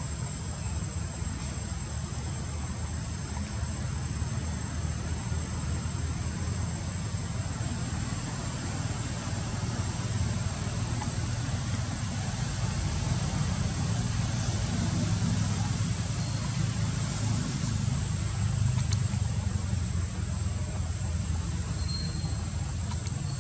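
Steady outdoor background noise: a low rumble and hiss, with a constant high, thin whine over it.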